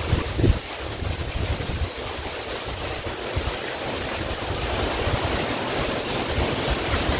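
Wind buffeting the microphone: a rushing hiss with an uneven low rumble that rises and falls with the gusts.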